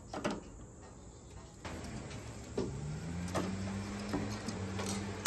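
Metal tongs clicking a few times against the grill grate and a metal sheet pan while chicken wings are lifted across. From about two seconds in, a low motor hum rises in pitch and then holds steady.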